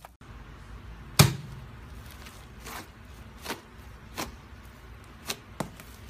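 Hands poking and squeezing a large mass of airy pink slime, with sharp pops and clicks as its air pockets burst: about half a dozen, the loudest about a second in.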